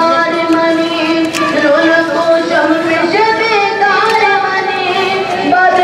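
A noha, a Shia mourning chant, sung by a high voice that holds long notes and moves between them with slow bends in pitch.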